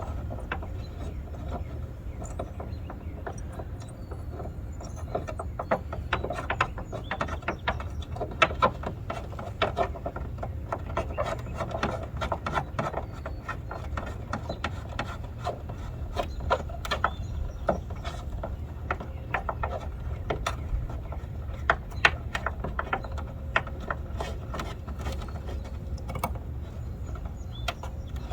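Irregular metal clicks, taps and light rattles of a hood pin assembly being handled and test-fitted into a freshly drilled hole, over a steady low hum.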